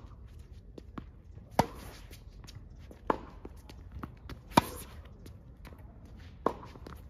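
Tennis rally on a hard court: four sharp hits of racket on ball, about one and a half seconds apart, the loudest a little past the middle, with fainter ball bounces and shoe steps between them.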